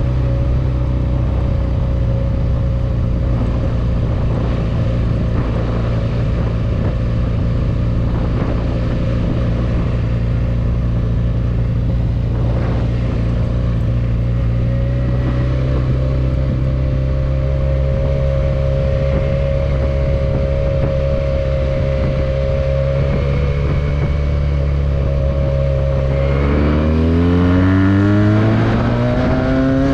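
Benelli 302S motorcycle's parallel-twin engine running at a steady speed while riding, then revving up with a rising pitch as it accelerates near the end.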